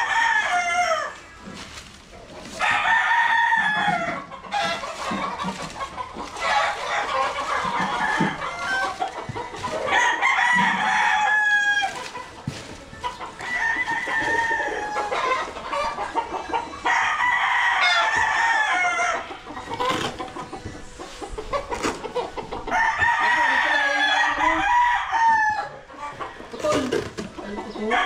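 Gamecocks crowing one after another, a new crow every few seconds, some crows overlapping.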